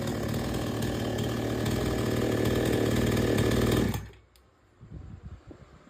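Petrol two-stroke chainsaw engine running steadily, getting a little louder, then cutting off suddenly about four seconds in. Faint low knocks follow.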